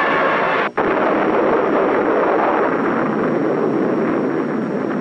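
Atomic bomb detonation on a 1950s film soundtrack: after a brief cut-out under a second in, a loud, steady rumbling blast noise with no distinct tones.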